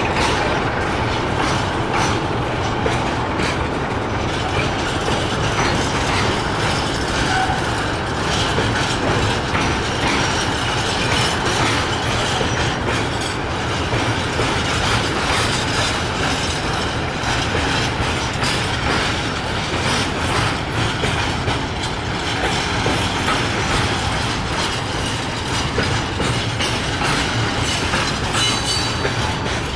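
Intermodal freight train wagons carrying trailers and containers rolling past, wheels clicking rhythmically over rail joints over a steady rumble, with a brief high wheel squeal near the end.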